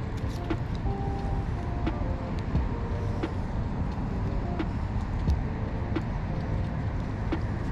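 Steady low outdoor rumble, with faint short steady tones scattered through it and a few light clicks.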